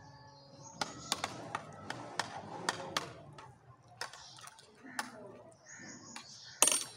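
Metal spoons clinking and scraping against trays of rice as two people eat: a run of sharp, irregular clicks, with one louder clatter near the end.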